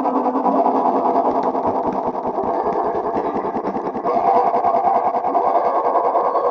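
A sneeze sound digitally multiplied and distorted into a dense buzzing drone of rapid, regular pulses. It grows louder and shifts in tone about four seconds in.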